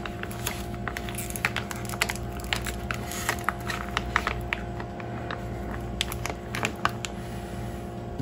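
Crinkling and crackling of a vacuum-sealed plastic meat package peeled open by hand as a raw steak is pulled out: many small, irregular clicks, over a steady low hum.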